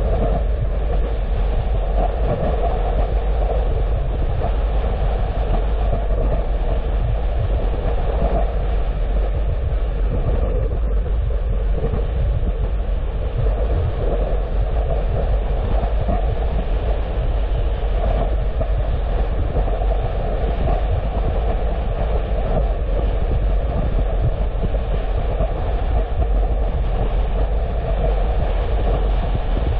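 Steady road noise of a car being driven: a continuous low rumble with tyre and wind noise, unchanging throughout.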